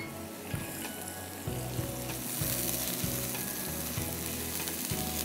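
Chopped onion and garlic sizzling in hot oil in a non-stick wok, sautéing till soft, while a silicone spatula stirs them with a few light scrapes and taps against the pan. The sizzle grows a little stronger about two seconds in.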